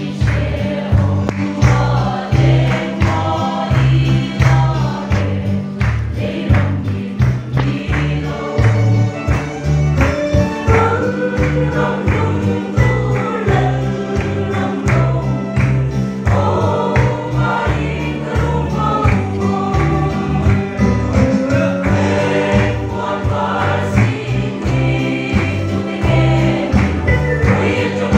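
Mixed choir singing a gospel hymn in unison, backed by steady beats on large hand-struck barrel drums.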